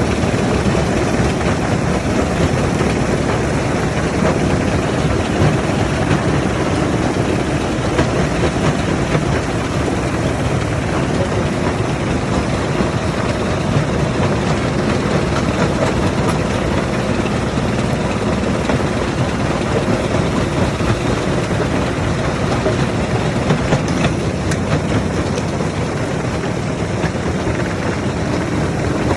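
Heavy machinery running steadily, a loud, unbroken mechanical din with no let-up.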